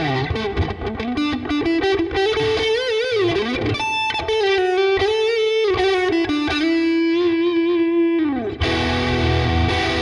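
Swing C1 Plus electric guitar, a Les Paul-style guitar with two humbuckers, played overdriven: a lead line of held single notes with wide vibrato and bends, with a short high note about four seconds in. Near the end it changes to a lower, fuller chord that rings.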